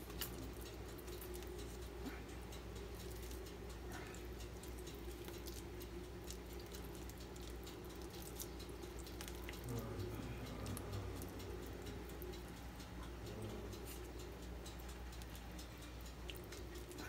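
Faint soft scraping, squishing and light clicks of a metal spoon and fork pressing mashed potato into the cavity of a whole mullet, over a steady low hum.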